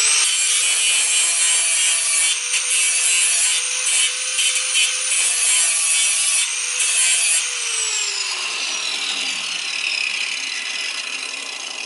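Angle grinder grinding down the outside of an exhaust pipe section clamped in a vise, thinning it to fit a connector: a steady high whine, with the disc catching and easing off a few times. About seven and a half seconds in it is switched off and winds down, its pitch falling.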